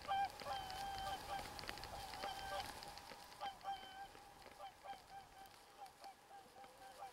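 A flock of large waterfowl calling over and over, the calls growing fainter and sparser until they have nearly died away by the end.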